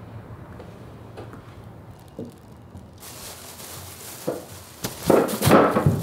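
Plastic shopping bags rustling and crinkling as they are handled on a table, with a few light knocks. The rustling is loudest near the end.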